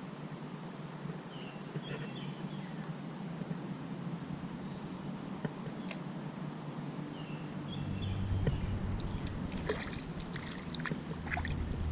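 Creek water lapping around a kayak, with a few light clicks and knocks and a low rumble from about eight seconds in.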